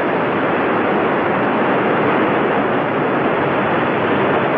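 Steady noise of a Delta rocket climbing seconds after liftoff, its main engine and six solid strap-on boosters burning.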